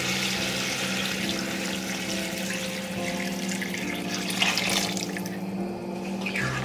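Water poured in a steady stream from a plastic pitcher into a pot full of watercress, splashing onto the leaves. The pour stops about five seconds in, with one last short splash near the end.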